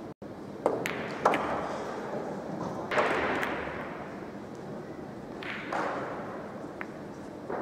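Pool balls and cue on a 9-ball table: two sharp clicks of cue tip and ball about half a second and a second in, then a loud crack about three seconds in with a rattling tail as a break scatters the rack, and another knock of balls colliding a couple of seconds later.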